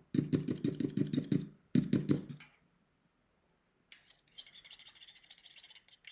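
Spatula stirring gel polish in an airbrush's metal colour cup: quick, even scraping taps, about five a second, that stop about two and a half seconds in. Lighter scattered clicks and handling noise start about a second and a half later.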